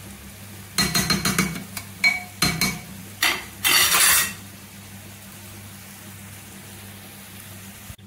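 Steel spoon stirring boiled vegetables in a pressure cooker, knocking and scraping against the pot: a run of clinks and scrapes over the first four seconds, the longest scrape near the end of them. After that only a steady low hum remains.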